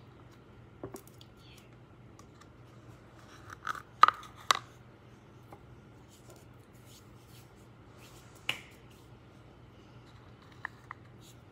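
A small boxed slime package being set down and handled on a granite countertop: a quick cluster of sharp clacks about four seconds in, a single knock a few seconds later, and two light taps near the end.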